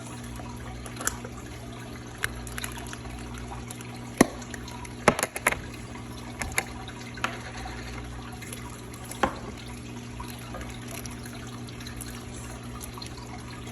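Slime being mixed and squeezed by hand: irregular wet squelches and sharp pops, the loudest clustered about four to five seconds in, over a steady low hum.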